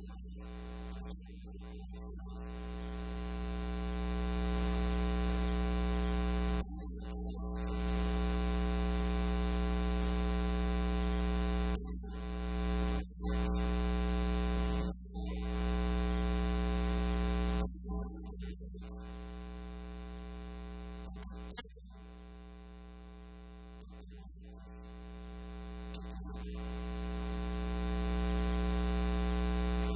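Steady electrical mains hum with a buzzing stack of overtones, coming from the sound system in place of the speaker's voice. It swells over the first few seconds, drops back in the middle and swells again near the end, with several brief cut-outs.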